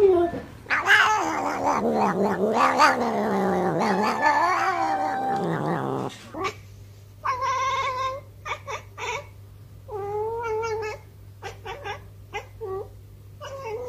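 Domestic cats making strange meows. The first is one long, wavering yowl that rises and falls in pitch for about five seconds. After a sudden cut comes a run of short meows in quick clusters.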